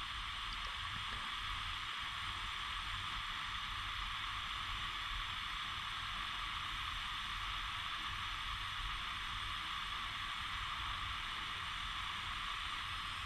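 Steady, even hiss of a small hand-held soldering torch's gas flame held on a wire splice to heat the wire.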